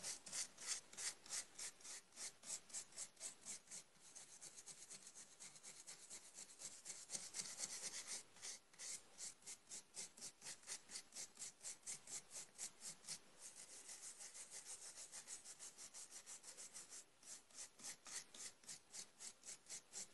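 A brush scrubbing back and forth over a freshly carved wooden relief, sweeping sawdust out of the carving: faint, quick scratchy strokes, about three to four a second.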